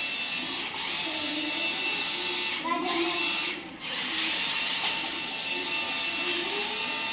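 Small electric drive motor and plastic gearbox of a Mahindra OJA 3140 RC toy tractor whining, its pitch wavering as it pulls against another toy on a rope. The whine dips briefly a little past halfway.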